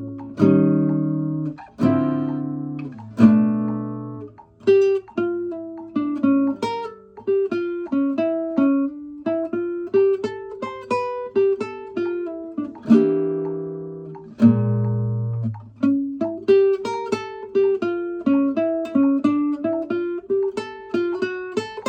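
1976 Kazuo Yairi CY 130 acoustic guitar played solo: a few strummed chords at the start and again about two-thirds of the way through, between runs of single plucked notes.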